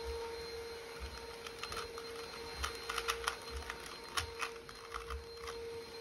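Plastic 3x3 Rubik's cube being turned by hand: irregular quick clicks and clacks of its layers twisting, over a faint steady hum.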